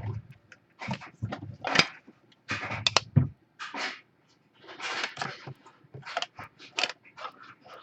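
Trading cards and plastic card holders being handled: an irregular run of short rustles, scrapes and taps, with a couple of dull thuds near the start.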